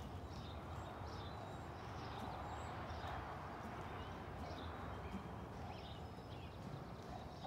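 Soft, muffled hoofbeats of a ridden horse moving over the sand footing of an arena, with small birds chirping in the background.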